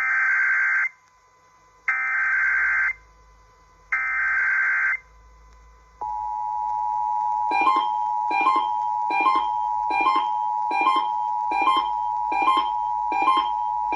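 Emergency Alert System test: three one-second bursts of SAME header data, a harsh digital warble two seconds apart, followed about six seconds in by the steady two-tone EAS attention signal. A regular pulsing beat, about one every 0.8 seconds, sounds over the attention tone.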